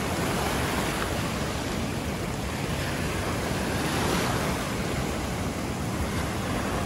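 Ohio River waves washing and breaking over the shallows, a steady rushing, with wind buffeting the microphone.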